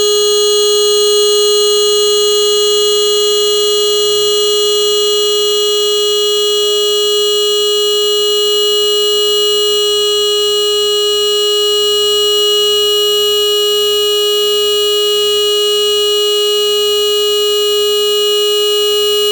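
Motorcycle horn held down in one long continuous blast, a single steady tone that never breaks or changes pitch.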